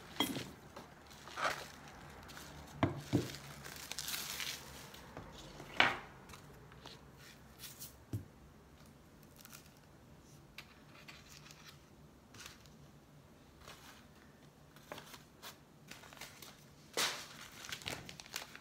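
Paper and packaging rustling, with small items knocking lightly as they are picked up and set down on a table. The sharpest knock comes about six seconds in, and there is a longer rustle near the end.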